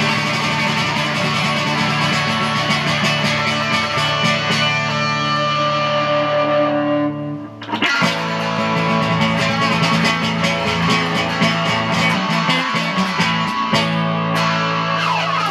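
Live band playing an instrumental passage led by electric guitar with effects and distortion, over bass. The music drops out briefly about halfway through, then comes back in.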